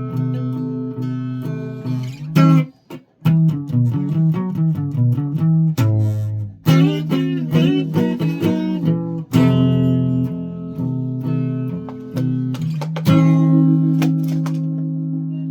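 Guitar being played: struck chords and quick runs of picked notes, with a short break just before 3 seconds in, ending on a chord left to ring out and fade.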